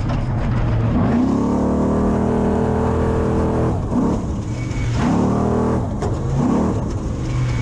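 Desert race truck's engine under hard throttle, climbing in pitch for about three seconds, then dropping sharply and revving up and falling off again in shorter swells, over a constant rumble of road noise.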